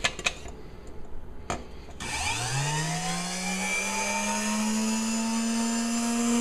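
Stainless steel mixing canister clinks a few times against the mixer, then the Hamilton Beach Model 33 malt mixer's motor switches on about two seconds in, its whine rising as it spins up and then running steadily.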